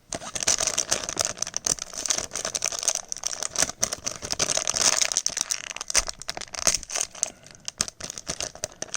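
A plastic blind-bag packet crinkling and crackling as it is handled and torn open by hand. The crackle is continuous and made up of many small sharp crackles.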